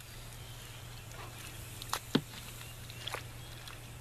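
A long-handled tool stirring a wet mix of bentonite clay and water in a plastic wheelbarrow: a few short knocks and scrapes, the two clearest about two seconds in, over a steady low hum.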